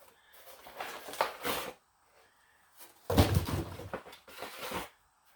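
Cardboard box and packaging rustling and knocking as the chainsaw is lifted out, in two bouts, the second louder, starting about three seconds in.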